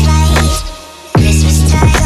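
Background music with deep held bass notes and a beat; it drops away for about half a second near the middle and comes back in sharply.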